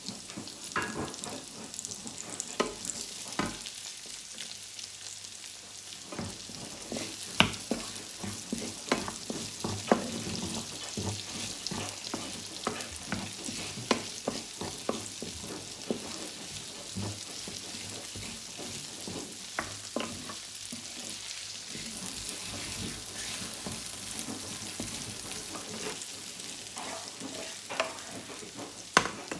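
Prawns, chili and spring onion sizzling in hot oil in a pan, stirred with a spatula that scrapes and clicks against the pan many times.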